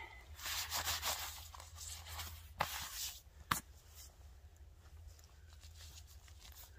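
Rustling of a waterproof dog coat being pulled over a Labrador's fleece jumper and its straps adjusted, with two short sharp rips or clicks about two and a half and three and a half seconds in. A low wind rumble runs underneath.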